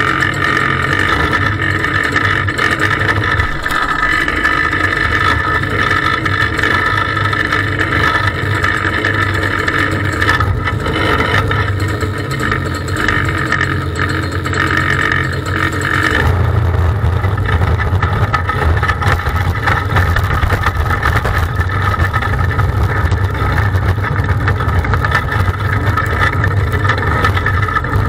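Onboard sound of an open-wheel dirt-track race car's engine running at low speed, a steady drone. About halfway through, the engine note changes and its low rumble gets louder.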